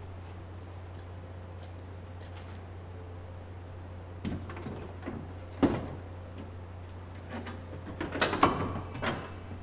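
Ferrari 458 rear bumper cover being handled and fitted by hand: a few scattered knocks and scraping clatters, one sharp knock near the middle and a cluster of them near the end, over a steady low hum.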